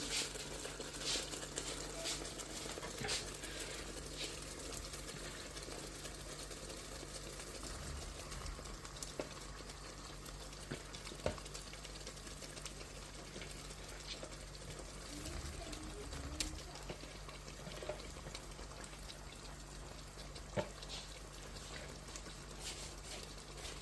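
Chicken curry cooking in a pot: a steady, fairly quiet bubbling sizzle of the tomato-and-masala gravy, with a few faint clicks.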